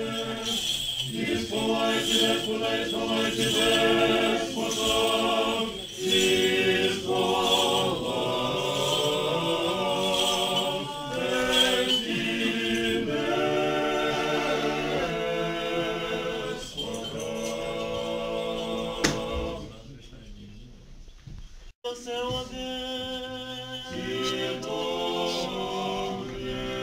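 Church choir singing unaccompanied in harmony: several voices holding and moving between sustained notes in Orthodox liturgical chant. The singing drops to a short lull about three-quarters of the way through, then picks up again.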